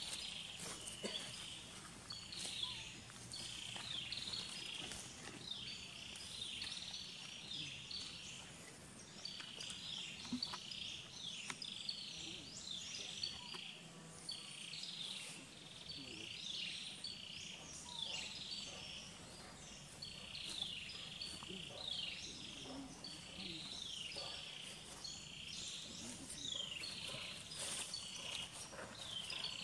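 Birds chirping in the trees: many short, high, falling chirps one after another, faint and unbroken.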